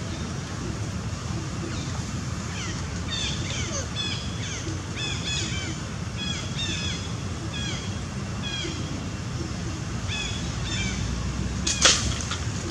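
A long run of short, high chirping animal calls, each dropping in pitch, over a steady low rumble. A single sharp crack about a second before the end is the loudest sound.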